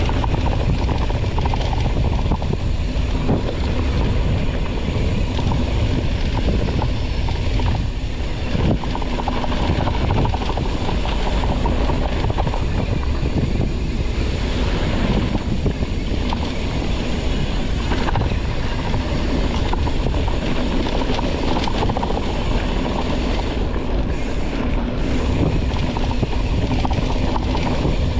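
Wind buffeting the microphone over the rattle of a mountain bike descending a rough dirt trail, with frequent short knocks as the bike hits bumps.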